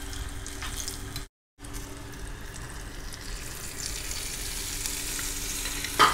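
Hot ghee tempering of cumin, chillies and dried fenugreek leaves sizzling in a small pan, then sizzling as the hot tadka is poured over the dal, with a short break in the sound about a second in. Near the end a single sharp knock.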